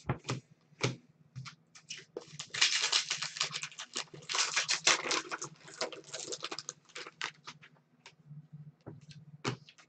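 Trading cards being flicked through and slid against one another in the hands: a run of quick rustling clicks, densest in the middle few seconds.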